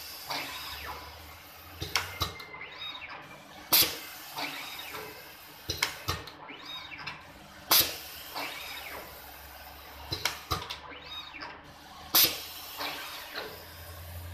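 Automatic wire labeling machine running through repeated labeling cycles about every four seconds. Each cycle has a sharp clack and smaller clicks, with motor whine rising and falling in pitch in between.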